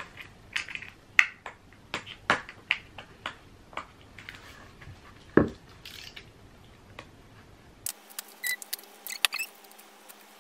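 Hands unpacking a delivered parcel of posters: a string of sharp clicks and taps with light rustling of packaging.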